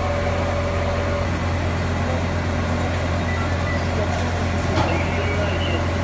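A fire truck's engine running steadily with a constant low drone, with voices faint underneath.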